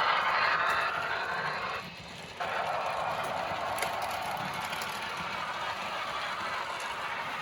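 Märklin model train running on the layout track: a steady rolling rattle and motor hum. It cuts out briefly about two seconds in, then carries on slightly quieter.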